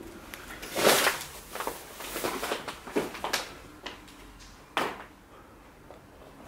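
Footsteps crunching and scuffing over debris on a floor: an irregular run of crunches, loudest about a second in, with one more sharp crunch near five seconds.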